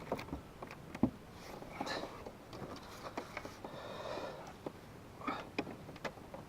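A person breathing and sniffing, with scattered small clicks and knocks from handling gear.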